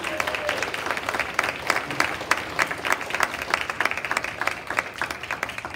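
An audience applauding: many hands clapping in a steady, dense round of applause.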